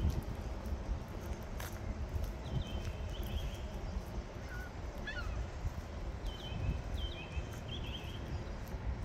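Small birds chirping and whistling in short bursts of high calls, several times, over a steady low outdoor rumble.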